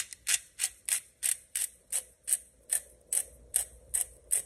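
Hand-held pepper grinder being twisted, its grinding mechanism clicking evenly about three times a second as it cracks peppercorns.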